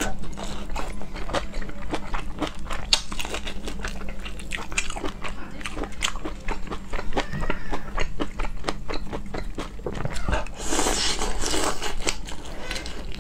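Close-miked biting and chewing of large whole shrimp: a dense run of small, sharp crackles and crunches as the shells and flesh are bitten and pulled apart, with a louder, noisier stretch a little after ten seconds in.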